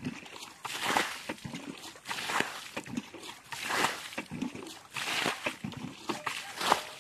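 Water splashing and sloshing in shallow muddy water, in irregular bursts about once a second.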